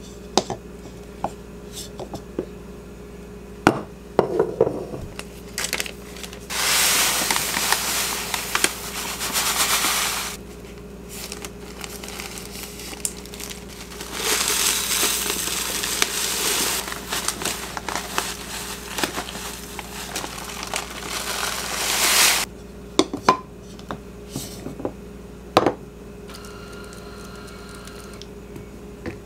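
Dry loose-leaf tea poured from a paper bag into a glass storage jar: two long rustling pours, with the bag crinkling. Light clinks and taps of a bamboo lid and glass jar come before and after the pours.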